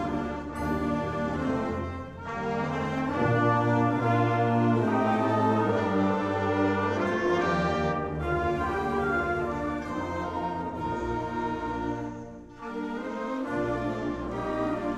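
Concert band music with prominent brass playing held chords. It pauses briefly between phrases about two seconds in and again about twelve seconds in.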